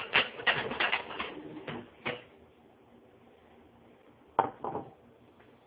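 Ceramic dinner plate clattering as it is handled, a quick run of clinks and knocks, then two sharp knocks as it is set down on a plastic cutting board about four and a half seconds in.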